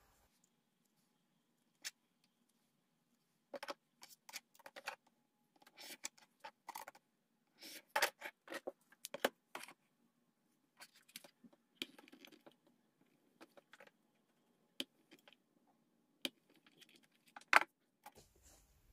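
Quiet handling of quilt pieces: scattered light clicks and taps with brief fabric rustles as the patchwork squares are moved and smoothed on a plastic cutting board, with one sharper click near the end.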